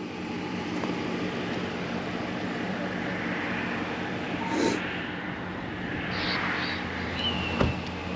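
Steady low engine hum of an idling vehicle, with a single short knock near the end.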